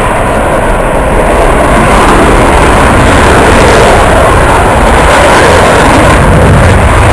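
Military fighter jet's engines during a display pass, a loud, steady rumble with no break.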